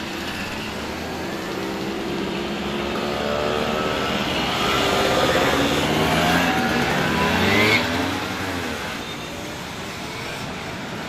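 Small two-stroke Simson mopeds riding past one after another. The engine sound builds to a peak a little under eight seconds in, with the pitch dropping as the bikes go by, then it falls away.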